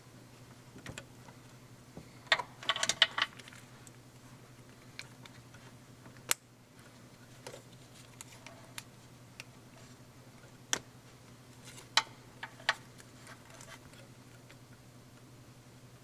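Small plastic clicks and rattles of an HID wire harness and its connectors being handled and plugged together. There is a short cluster of rattling about two seconds in, then a few sharp single clicks spread through the rest.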